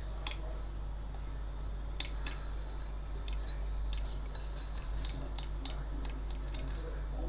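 Light irregular clicks and taps of multimeter test probes touching transistor legs on an amplifier circuit board, starting about two seconds in, over a steady low hum.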